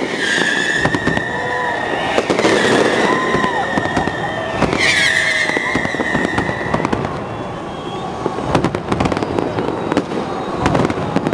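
Fireworks going off in quick, irregular bangs and crackles, with a long high whistle in the first seven seconds that starts again about five seconds in.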